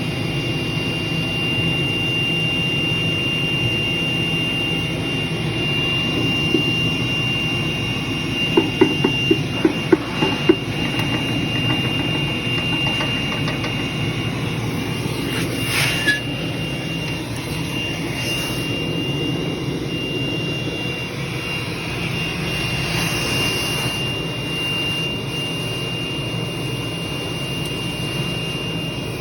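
Submerged-arc welding run: a steady, even hum from the welding machine and the arc burning under its flux blanket, with a thin high whine throughout. About nine to ten seconds in there is a quick run of sharp clicks.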